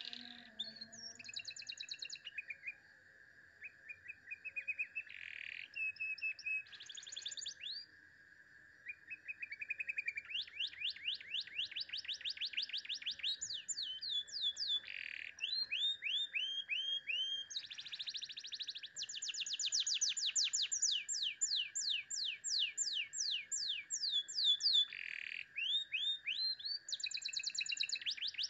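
Domestic canary singing: long phrases of rapid trills and rolls built from fast repeated downward sweeps, with brief pauses between phrases.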